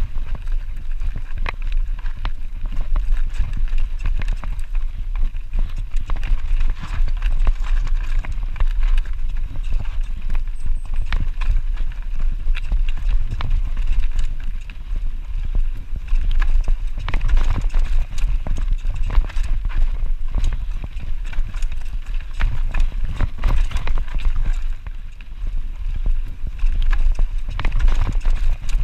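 Radon Slide 150 mountain bike riding down a rough dirt trail: a steady clatter of small knocks and rattles from the chain, frame and tyres over roots and stones, over a low rumble of wind and vibration on the camera. It eases briefly about 25 seconds in.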